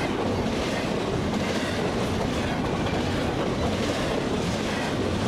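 Double-stack intermodal container cars of a freight train passing at high speed close by: a steady, loud rush of steel wheels on rail with a running clatter of wheels over the rail joints.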